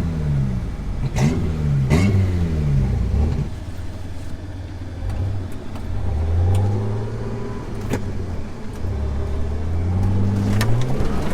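Jeep Wrangler TJ engine revving up and dropping off again and again as it drives through mud, easing off for a few seconds in the middle. A few sharp knocks are heard over the engine.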